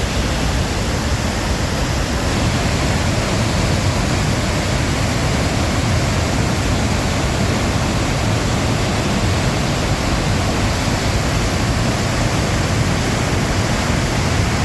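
A waterfall's falling water rushing loudly and steadily, with no letup.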